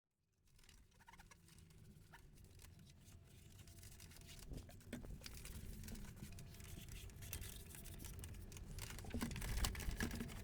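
A cloth wiping and rubbing over the grimy plastic case of an old computer monitor, with soft scuffs and small knocks. It starts after half a second of dead silence and slowly grows louder.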